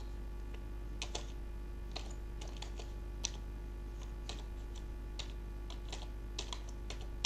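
Computer keyboard being typed on: slow, irregular key clicks as a word is entered one letter at a time.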